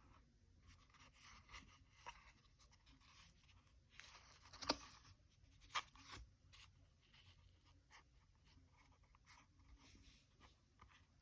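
Faint rustling and scraping from a CAT tourniquet holster being handled, with two sharp clicks, a little under five seconds in and about a second later.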